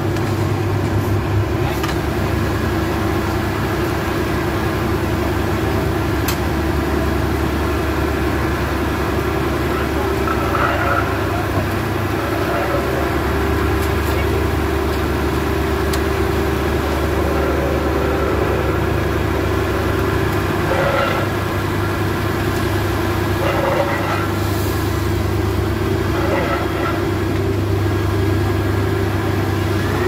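Heavy diesel engines of a Dynapac asphalt paver and a tipper lorry running in a steady low drone while the lorry's raised body tips asphalt into the paver's hopper.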